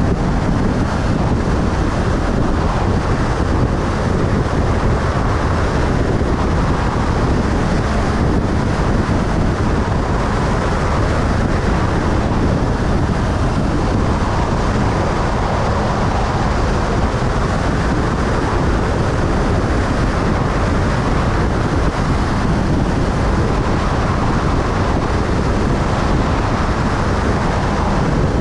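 Steady wind noise over the microphone of a motorcycle cruising at highway speed, with the engine and tyres running underneath at an even pace.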